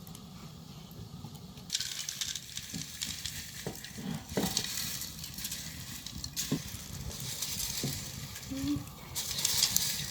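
Food sizzling in a pot over a fire, with scattered knocks. The sizzle starts suddenly about two seconds in and is loudest near the end.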